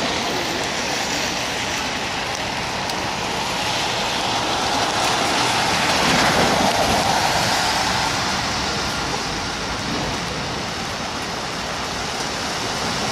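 City traffic on a wet street: a steady hiss of tyres on wet pavement, swelling as cars pass close about six seconds in.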